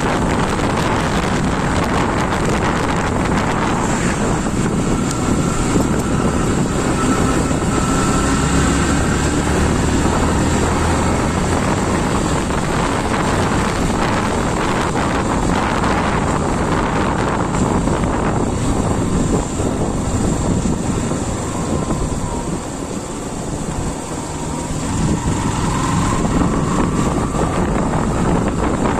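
Wind rushing and buffeting over the microphone of a moving motorcycle, with the bike's engine running underneath; the rush dips for a few seconds past the middle, then builds again.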